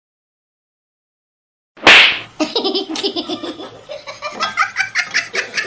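Silence, then about two seconds in a sudden loud, short burst of noise, followed by repeated laughing.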